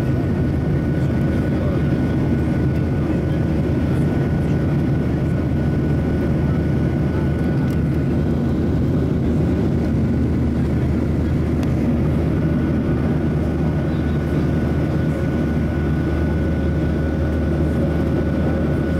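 Cabin noise of a Southwest Boeing 737 climbing after takeoff, heard from a window seat over the wing: steady engine and airflow noise with a thin steady whine above it.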